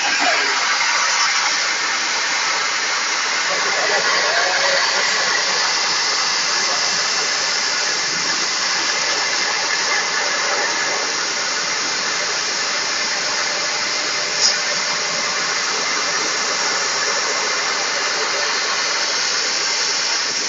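Laser cutting machine cutting circles out of sheet metal, a steady rushing hiss with a brief tick about fourteen seconds in.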